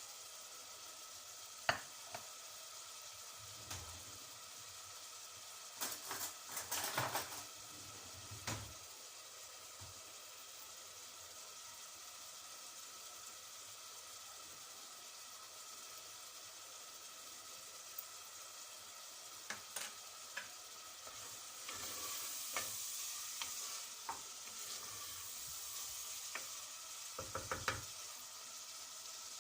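Food sizzling in a hot pan with a steady hiss, stirred with a utensil that knocks and scrapes against the pan now and then; the sizzle swells for a few seconds past the middle.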